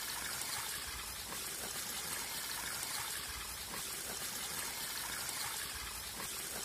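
Small stream water pouring and splashing steadily over the edge of a plastic sheet laid as a spillway.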